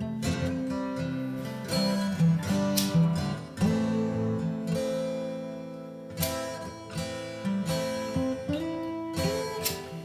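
Background music led by acoustic guitar, with plucked and strummed chords.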